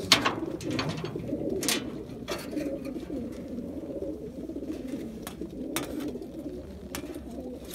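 A crowd of racing pigeons cooing continuously inside their transport crates, with a few sharp metal clicks scattered through as the crates' sheet-metal doors are unfastened for the release.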